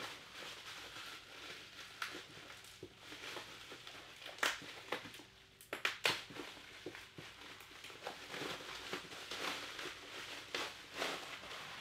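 Packing material rustling and crinkling in irregular bursts, with small crackles and knocks, as a boxed vinyl figure is unwrapped by hand.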